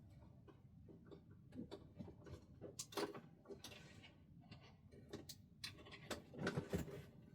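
Light, irregular clicks and knocks of hands handling a plastic RC monster truck and its battery.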